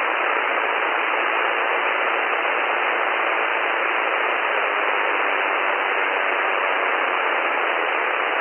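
Steady radio static hiss from the aircraft radio, heard through the headset intercom feed, with no voice on the frequency.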